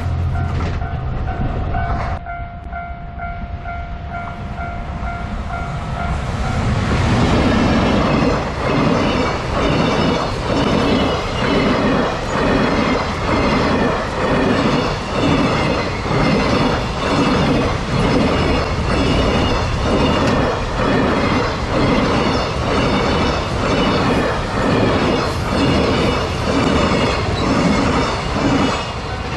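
A level-crossing warning bell rings in a steady repeating tone. Then, about seven seconds in, a train passes over the crossing, its wheels clacking over the rail joints in a steady rhythm of a little more than one beat a second.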